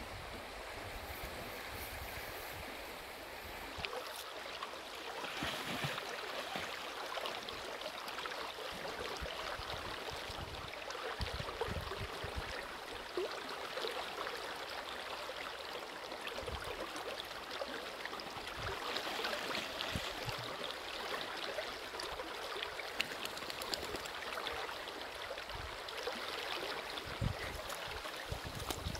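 River water flowing steadily in a broad, fast current, with a few brief low bumps.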